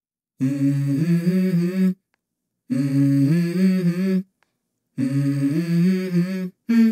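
Music: a voice humming a short stepped melody in three phrases of about a second and a half each, with brief silences between them.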